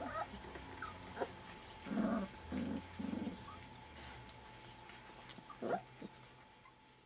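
Four-week-old Caucasian shepherd puppies vocalising while play-fighting: short high yips scattered throughout, and a few louder, lower, longer calls about two to three seconds in.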